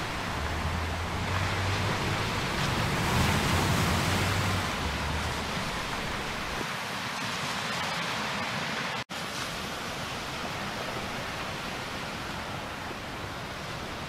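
Small surf waves washing onto a sandy beach: a steady rush of breaking water that swells about three to four seconds in and then eases to a lower, even wash. The sound cuts out for an instant a little past halfway.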